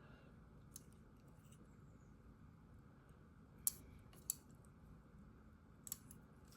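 Near silence with a handful of light, sharp clicks: one near the start, two louder ones in the middle and a close pair near the end. They are small taps of grapes and fingers on a serving plate as the grapes are arranged by hand.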